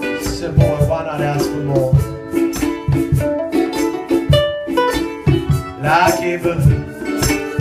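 Instrumental break of a folk song: plucked strings over a steady low beat about twice a second, with a sliding melody line.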